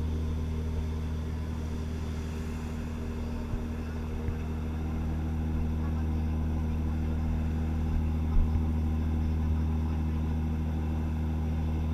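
A passenger ferry's engines running steadily under way, a low even drone, with water rushing past the hull. A few brief knocks, the loudest about eight seconds in.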